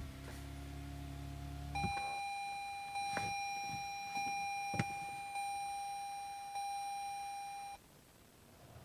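Low steady hum for about two seconds, then a 2014 Toyota Avalon Hybrid's dashboard warning chime: one steady high tone, re-struck about every second and a quarter, for about six seconds before it stops. It sounds as the hybrid system fails to reach the Ready state.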